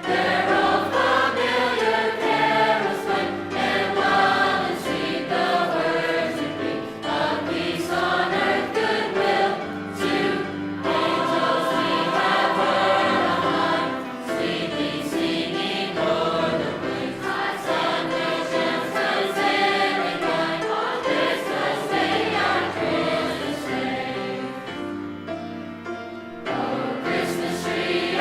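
High school choir singing in harmony, many voices holding and moving through sung chords.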